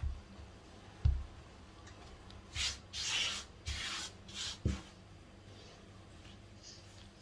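Hands kneading crumbly flour-and-butter pastry dough on a silicone baking mat: about five dull thumps as the dough is pressed down, and a dry rasping rub of hands and dough across the mat in the middle.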